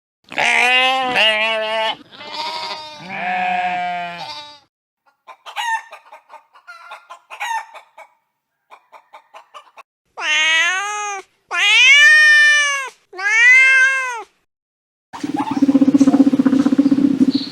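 A string of different farm and household animal calls: two wavering bleat-like calls, then a run of short soft clucks, then three drawn-out cat meows that rise and fall in pitch, and near the end a rough, buzzing animal sound.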